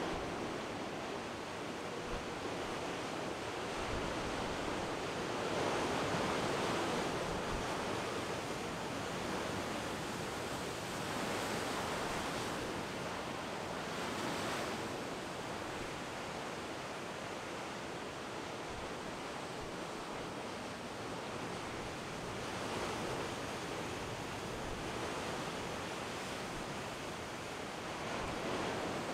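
Heavy storm surf breaking on basalt rocks: a steady roar of white water that swells louder several times as big waves crash. Some wind buffets the microphone.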